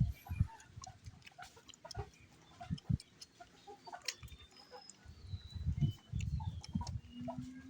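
Chickens clucking in the background, with a few faint high chirps, over soft low rustling and thumps from the puppies nursing.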